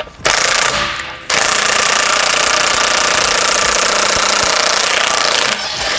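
Pneumatic impact wrench hammering on a fastener: a short burst of under a second, then a longer run of about four seconds that stops just before the end.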